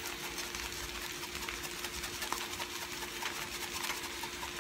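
Sliced potatoes and sausage frying in a skillet: a steady sizzle with small crackling pops, over a steady low hum.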